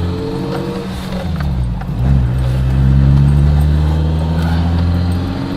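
BMW E30 M3 Evo 2's S14 four-cylinder engine pulling under acceleration, its pitch rising, dropping at a gear change about two seconds in, then climbing again.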